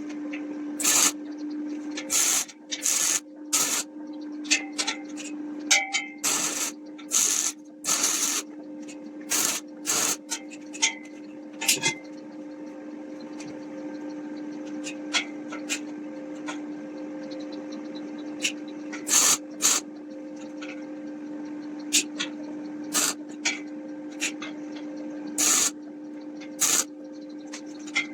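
Hand sanding on wood: short, irregular rubbing strokes over a steady low hum.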